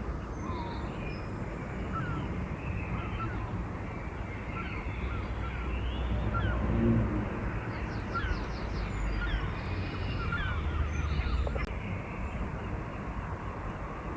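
Wild birds calling and singing: many short chirps and whistled notes from several birds, with a quick trill about eight seconds in and crows cawing among them. A steady low rumble runs underneath.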